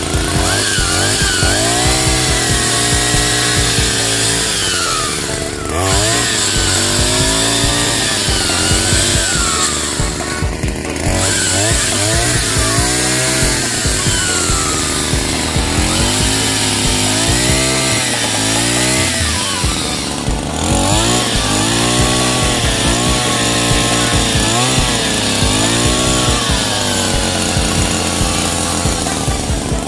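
Two-stroke brush cutter engine driving a chainsaw attachment through wood, its pitch rising and falling as it bogs and revs, with brief drops about five, ten and twenty seconds in.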